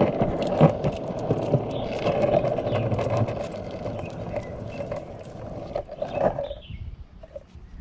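Cruiser skateboard wheels rolling on a concrete sidewalk: a steady rumble with scattered clicks, fading and stopping about six and a half seconds in.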